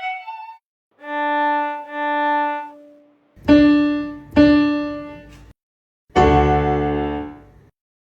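A violin plays two held notes that swell in and out. A piano answers with two single struck notes, each left to ring and fade, then a full low chord that dies away, with short silent pauses between the phrases.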